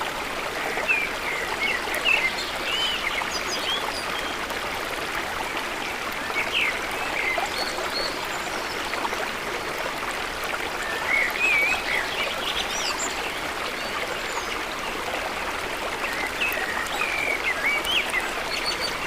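Swollen river in flood rushing steadily, with a bird singing short twittering phrases over it several times.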